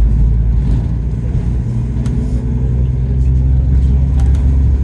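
Bus engine running and road rumble heard from inside the moving bus: a steady, loud low drone.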